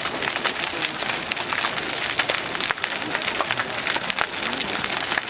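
Large bonfire burning hard: a dense, continuous crackle of many small pops and snaps, like heavy rain on a surface.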